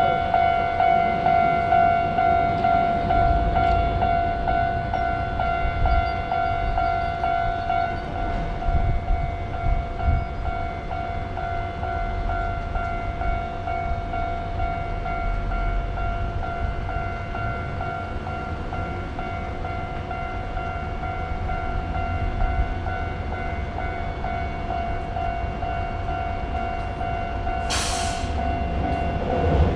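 Japanese railroad crossing warning bell ringing with a rapid, repeating clang while a train runs by with a low rumble. A short sharp crack comes near the end.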